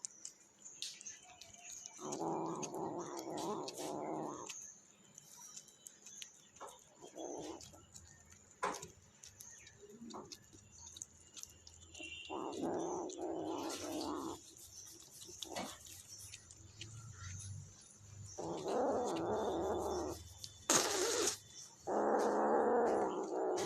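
Kitten growling in rough bursts of about two seconds, several times over, with a short sharp hiss near the end: it is guarding its food while eating.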